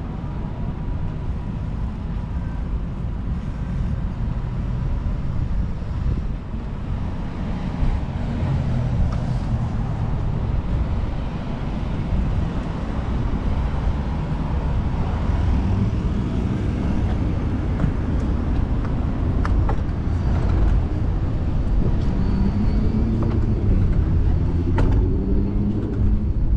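Steady low rumble of road traffic and wind on the microphone, heard while riding a bicycle.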